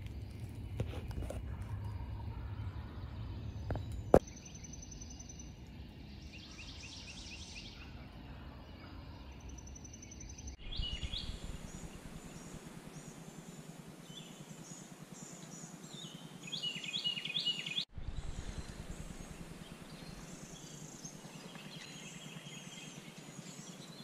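Wild birds chirping and trilling in spring woods, many short phrases, loudest about two-thirds of the way through. A low rumble lies under the first few seconds, with a sharp click about four seconds in.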